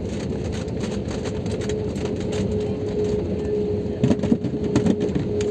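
Cabin noise of an Airbus A320-family airliner on its landing rollout: a steady rumble of the engines and the wheels on the runway. A steady whine sets in about a second and a half in, and a few knocks and rattles come near the end as the jet slows.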